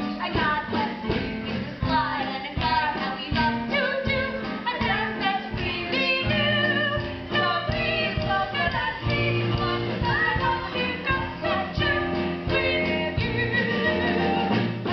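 Song from a stage musical: voices singing over instrumental accompaniment with a steady beat.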